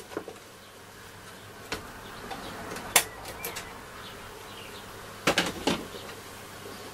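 Clicks and knocks from the wooden back panel of a Dynatron Atlantis radio cabinet being unclipped, lifted off and set down on the bench. The sharpest comes about three seconds in and a cluster of knocks comes near the end, over a faint steady buzz.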